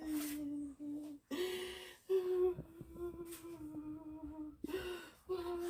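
A woman's voice moaning in distress: a string of long, level, held tones with audible breaths drawn between them.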